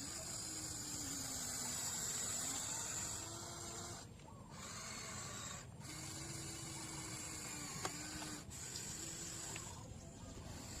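Small electric motors of radio-controlled construction models running, a mechanical whir with a high steady whine that cuts out briefly about four times and a lower tone that slides up and down in pitch as the machines move.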